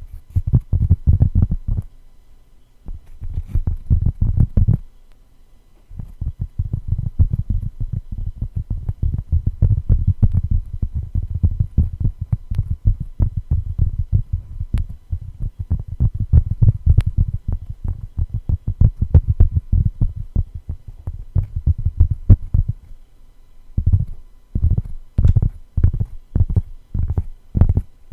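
Rapid tapping on a cork board: dull, low knocks in quick flurries, with short breaks between runs.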